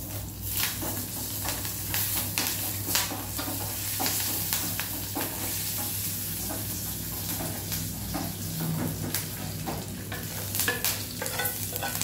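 Mustard seeds, cumin, urad dal, chilli and curry leaves sizzling and crackling in hot oil in a small steel kadai, stirred with a wooden spatula: a tempering for coconut chutney. There are sharp pops throughout, thickest about three seconds in and again near the end.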